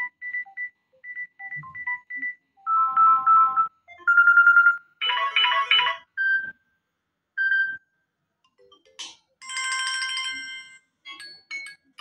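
Samsung Galaxy A13's stock ringtones previewing through its loudspeaker one after another. Each one is a short snippet of beeps, chimes or bell tones, cut off as the next tone in the list is tapped.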